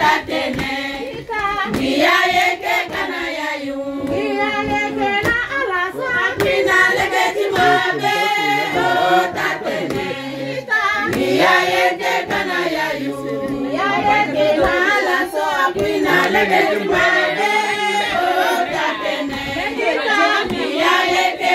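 A group of women singing together in chorus, unaccompanied, with hand claps.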